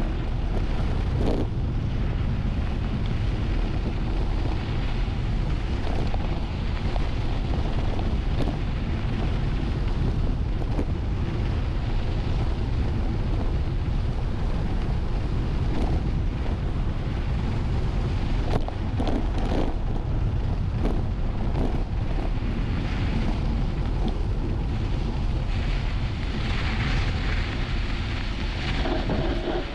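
Heavy wind buffeting the microphone of a camera riding on a mountain bike at speed downhill. Scattered short knocks run through it.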